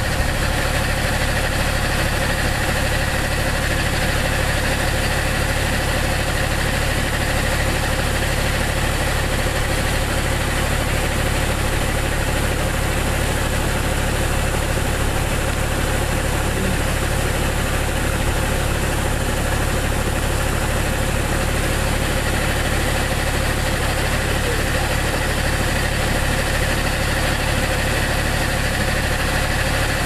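Irrigation boom spraying water under pressure: a constant hiss over a steady, unchanging machine drone, like a motor or pump running at constant speed.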